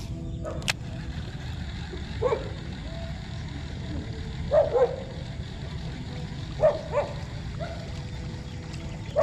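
A dog barking at intervals, single barks and a quick pair, every two seconds or so, over a steady low rumble. There is a sharp click just under a second in.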